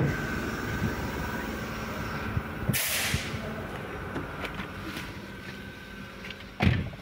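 A car door shuts with a single thump near the end: the driver's door of a 2015 Toyota Camry Hybrid. A brief hiss sounds about three seconds in, and a steady background hum drops away after it.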